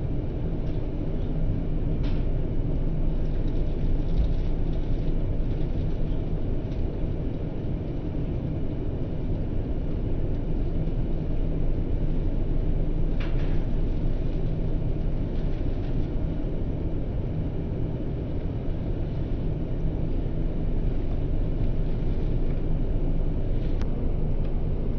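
Steady low rumble of an airliner's engines and airflow heard inside the passenger cabin, with a few faint clicks.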